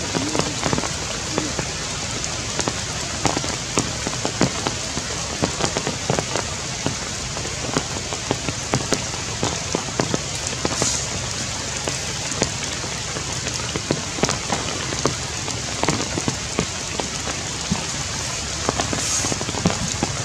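Heavy rain falling through forest foliage: a steady hiss with many separate drops striking leaves and branches close to the microphone.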